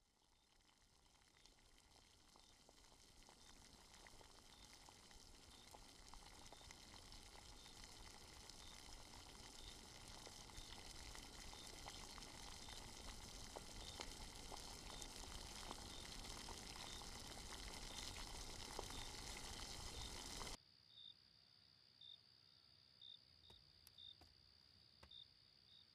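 A hiss-like noise swell builds steadily louder for about twenty seconds and then cuts off suddenly, leaving crickets chirping, about one chirp a second, over a faint steady high whine.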